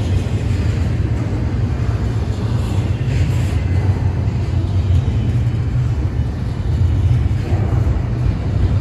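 Steady, loud low rumble of a freight train.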